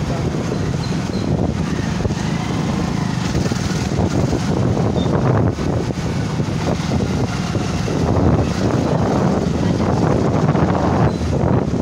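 Scooter riding along a street: its engine running, with wind buffeting the microphone and tyre and road noise.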